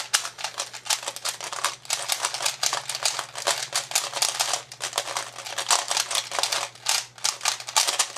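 Two 3x3 Rubik's cubes being speedsolved at once: a fast, continuous clicking of plastic cube layers being turned, many clicks a second.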